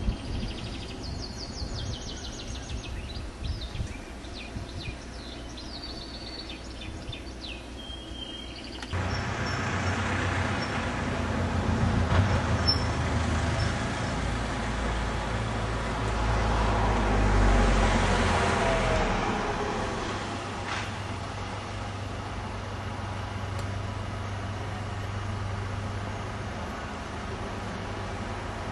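Birds chirping in the first few seconds over a quiet background, then street traffic noise. A vehicle passes, loudest about two-thirds of the way through, and a steady low engine hum follows.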